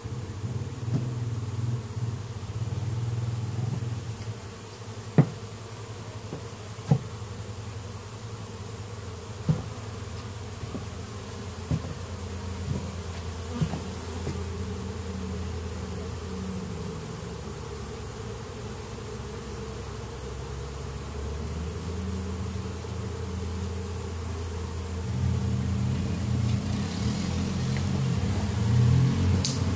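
Honeybees buzzing close by, the buzz growing louder near the end. Five sharp knocks sound between about five and fourteen seconds in.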